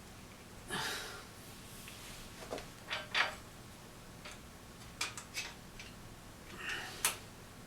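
Metal motorcycle fork parts being handled while a spacer is fitted over the compressed fork spring: a string of separate clicks, clinks and short scrapes, the longest a brief rub about a second in and the sharpest clink about seven seconds in.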